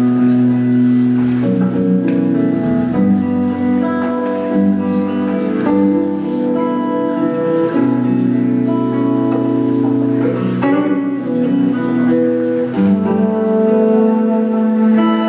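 Live acoustic mantra music: guitar with long held melody notes changing every second or two over a steady low drone.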